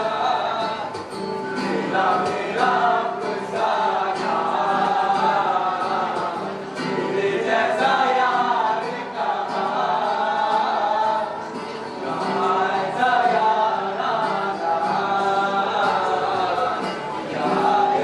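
Music: a choir of voices singing over a steady held note.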